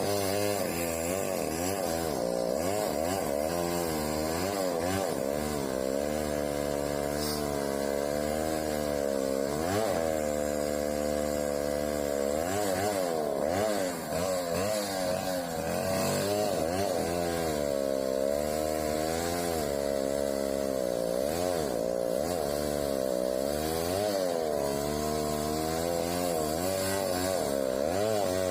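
Chainsaw engine running without a break, its pitch rising and falling again and again as the throttle and cutting load change, with a brief drop about fourteen seconds in.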